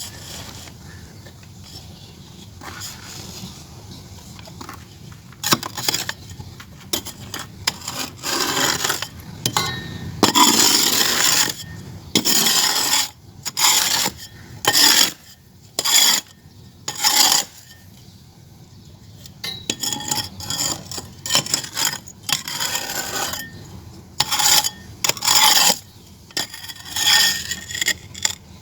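Gritty scraping and rubbing of clay being worked into shape, in irregular strokes of up to a couple of seconds with short pauses between, starting about five seconds in.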